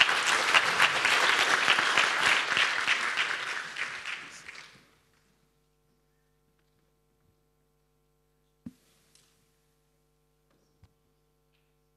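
Audience applauding, dying away about five seconds in. Then a faint steady hum with two small knocks.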